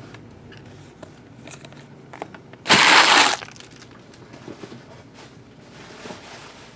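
A trading card pack wrapper crumpled in the hand: one loud crinkle lasting under a second, about three seconds in, with light handling clicks around it.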